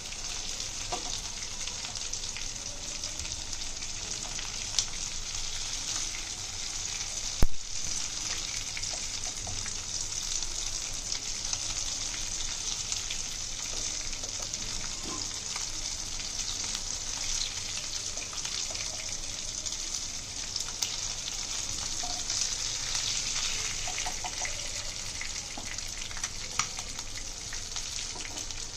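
Barramundi pieces shallow-frying in oil in a pan: a steady sizzle with small crackles, and light scraping of a wooden spatula and spoon as pieces are lifted. One sharp knock about seven seconds in.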